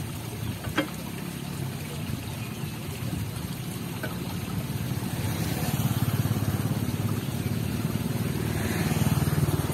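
A large engine running at low revs, a steady low rumble that swells a little in the second half, with a sharp clack about a second in.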